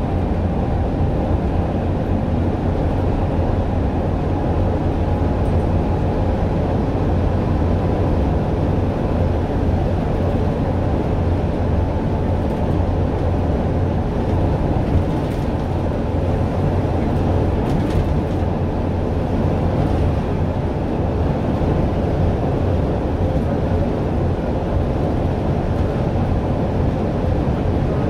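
Guided bus running at speed along the O-Bahn busway's concrete guide track, heard from inside the cabin at the front: a steady low rumble.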